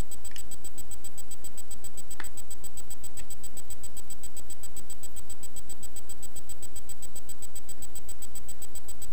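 Steady electrical hum and high whine from the recording setup, with three faint short clicks in the first few seconds.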